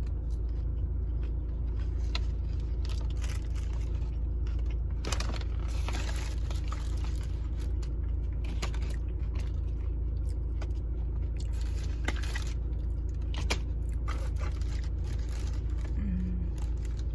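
Steady low hum of an idling car, with scattered clicks, crunches and rustles of someone eating and handling fast-food packaging.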